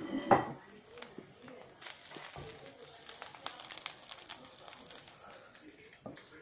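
A wooden spatula stirring and scraping fried rice in a nonstick frying pan and scooping it onto a plate, heard as light scrapes and many small clicks. A brief loud sound comes right at the start.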